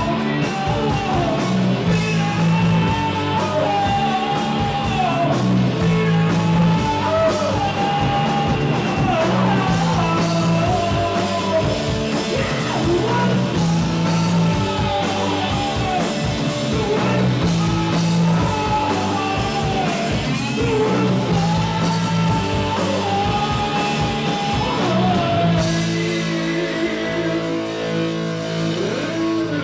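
Live rock band playing electric guitars and drums, with a lead singer singing over them.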